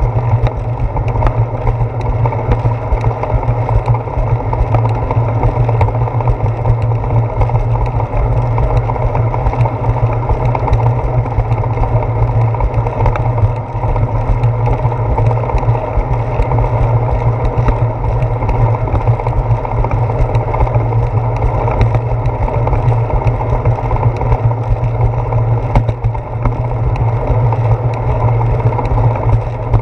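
Steady rumble and wind noise of a bicycle riding along a wet concrete path, picked up by a handlebar-mounted GoPro Hero 4.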